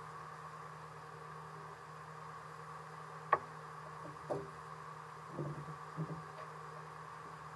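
Steady drone of a boat's engine under way, with four short knocks from about three seconds in, the first the sharpest.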